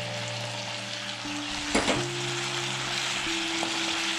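Fried chicken 65 pieces sizzling in hot gravy in a frying pan as they are stirred with a spatula, with one sharp knock a little under two seconds in. Background music with held notes plays underneath.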